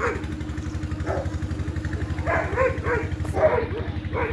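A dog whining and yelping in short calls that rise and fall, several in a row from about two seconds in, over the steady pulsing of an engine running at idle.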